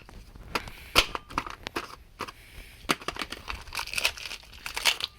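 Plastic packaging on a new brake rotor crinkling and tearing as it is handled, with irregular crackles and clicks.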